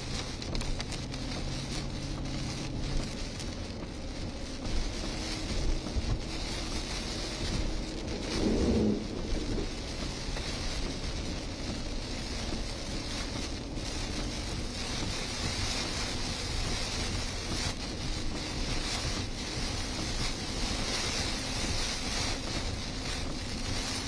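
Heavy rain hitting a moving vehicle's windshield and body, mixed with tyre hiss on the flooded road and wind, heard from inside the vehicle. A brief, louder rush rises and falls about nine seconds in.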